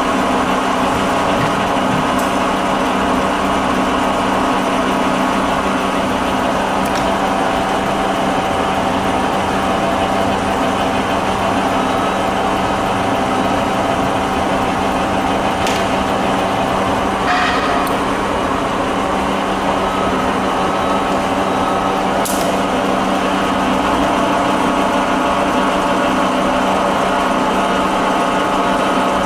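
1948 Warner & Swasey No. 5 ram-type turret lathe running under power, its electric drive and geared headstock giving a steady hum, with a few light clicks along the way.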